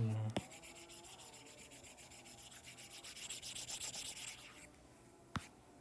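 Stylus nib dabbing and scribbling rapidly on an iPad's glass screen for about four seconds: a fast, dry ticking rub. A short low hum comes at the very start, and there is a single sharp tap near the end.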